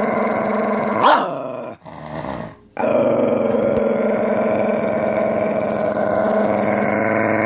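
Lhasa apso growling in long, steady growls, its pitch sweeping sharply upward into a short yelp about a second in, then a pause for breath before one long growl resumes.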